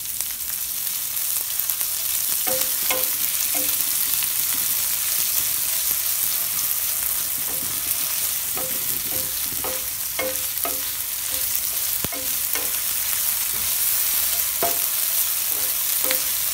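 Sliced onions with ginger-garlic paste sizzling in hot sesame oil in a kadai, with a steady hiss. The spatula scrapes and taps against the pan in clusters as they are stirred, each tap ringing briefly.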